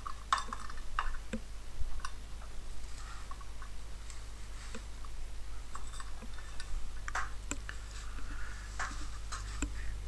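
A dozen or so light clicks and taps from small hard objects being handled, scattered irregularly, over a steady low hum.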